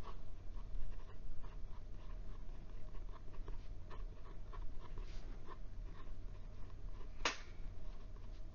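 The fine steel nib of a Jinhao 997 fountain pen scratching across notebook paper in many short strokes as letters and numbers are written. There is one sharp click about seven seconds in, over a steady low hum.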